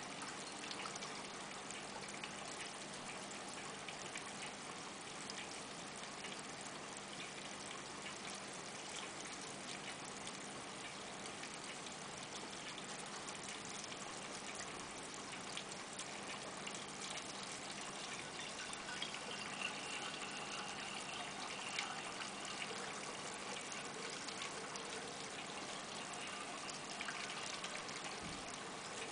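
Reef aquarium water trickling and bubbling steadily as it circulates, with a faint steady hum underneath.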